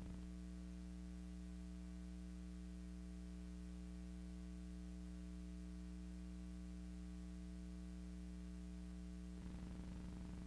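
Steady electrical hum, a stack of even tones, with nothing else. It turns slightly louder and rougher about nine seconds in.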